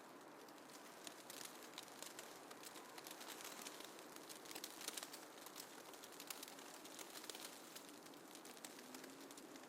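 Faint snowfall ambience: a soft hiss dotted with many small, irregular crackling ticks.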